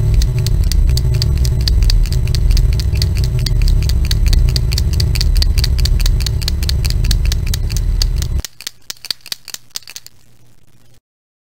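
Paint marker shaken hard, its mixing ball rattling in rapid, even clicks over a loud low rumbling noise. The rumble cuts off suddenly about eight seconds in; the rattle goes on a moment longer, then fades out to a faint hiss.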